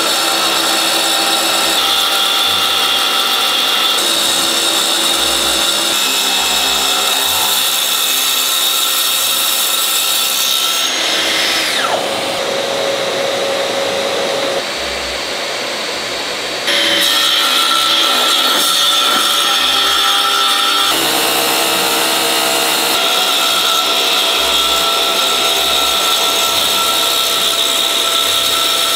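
A power tool running steadily on wood. About twelve seconds in its pitch falls and it drops in level, then comes back to full level about five seconds later.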